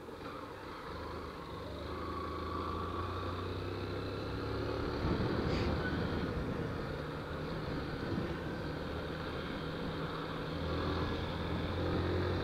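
Small motorcycle engine running steadily while riding slowly in city traffic, getting a little louder twice. A brief click about five and a half seconds in.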